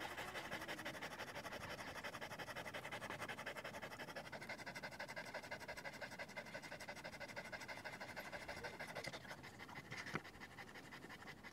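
Two dogs panting rapidly at the same time in a fast, even rhythm that grows fainter near the end.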